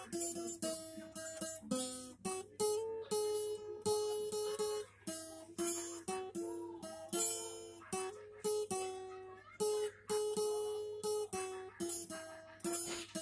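Solo acoustic guitar playing an instrumental passage, strummed chords mixed with picked melody notes, with no singing.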